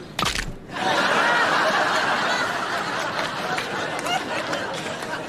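A brief bang, then a studio audience bursts into laughter, loudest at first and slowly dying down.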